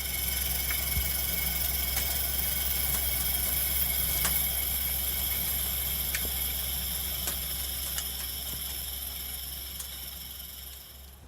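CNC lathe running in a machine shop: a steady low hum with a high steady whine, and scattered sharp clicks. It fades out near the end.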